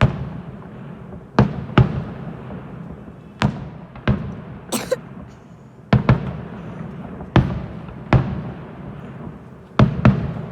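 Fireworks display going off: about ten sharp bangs at uneven intervals, some in quick pairs, each trailing off in a rolling echo. A brief hissing crackle comes near the middle.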